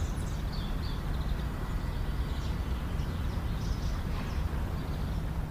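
Outdoor ambience: birds chirping over a steady low rumble.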